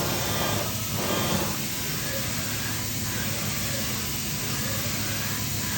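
Makino F5 CNC vertical machining center running, with steady hum and hiss while its axes traverse at rapid rate; a few surges of axis motion come in the first second and a half, then it settles to a steady run.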